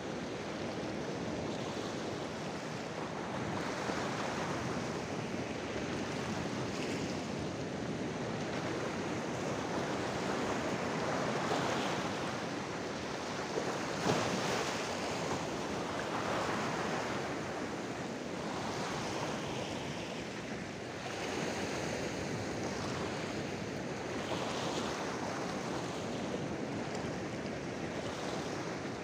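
Sea surf washing in and breaking against a rocky shore, rising and falling with each wave, with one sharper splash about halfway through.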